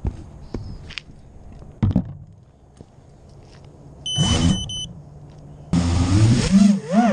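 A few handling knocks, then a short burst of motor whine about four seconds in. From near six seconds a quadcopter's four Racerstar 2205 brushless motors with three-blade 5045 props spool up loud, their pitch rising and falling with the throttle.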